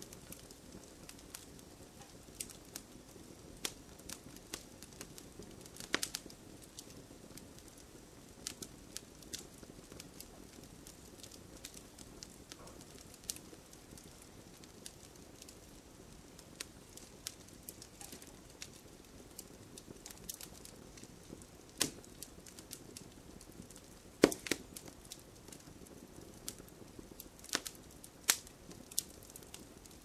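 Fire crackling: a low steady hiss with irregular sharp pops and snaps, a few much louder pops standing out, most of them in the last third.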